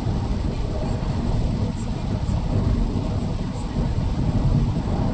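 Steady low rumble of a car's road and engine noise heard from inside the cabin while driving in the rain, with a few faint short high ticks.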